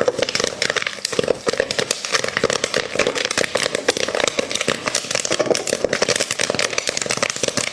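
Popcorn kernels popping in a covered pot on the stove, a dense, fast run of crackling pops with no let-up: the batch in full pop.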